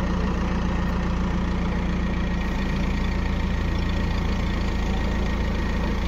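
Vehicle engine idling steadily, its sound mostly low and even throughout.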